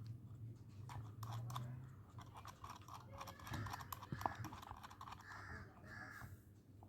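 Faint small metallic clicks and scrapes of a safety nut being threaded by hand onto a ceiling fan's down-rod bolt, in irregular ticks.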